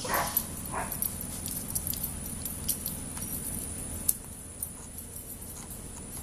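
Dogs: two short dog yips about a second apart near the start, then light scattered clicks and jingles of collar tags and hardware as the dogs move.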